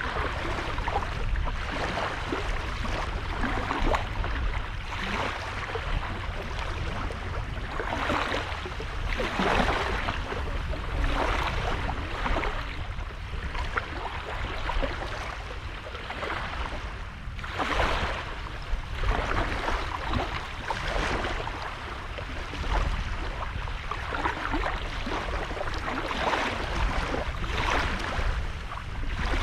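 Small waves breaking and washing onto a sandy beach in irregular surges every second or two, over a constant low rumble.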